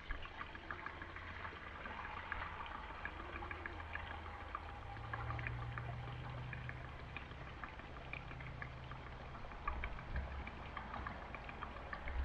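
Gasoline pouring from a spill-proof gas can into an engine's fuel tank: a faint, steady trickle with scattered small ticks.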